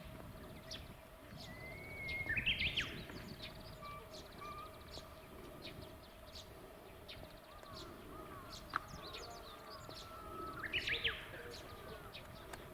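Small birds chirping and singing over a low background murmur, with two louder song phrases: one about two seconds in and one about ten seconds in.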